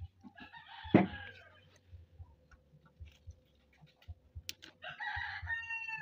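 A rooster crowing twice, once about a second in and again near the end, each crow about a second long. A sharp knock about a second in is the loudest sound. Faint small clicks come from the rambutan being handled and peeled.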